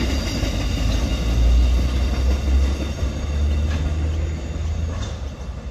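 Freight wagons of a steel train rolling past on the rails: a low rumble with faint steady high tones from the wheels, fading near the end as the last wagons move away.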